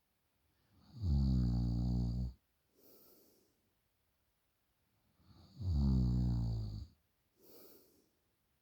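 A person snoring in deep sleep: two loud, low-pitched snores, each over a second long and about four and a half seconds apart, each followed by a softer breath.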